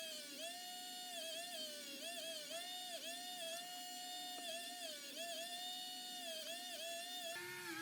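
A small high-speed electric motor whining, its pitch sagging and recovering again and again as it is loaded. Near the end the pitch drops abruptly to a lower, steadier whine.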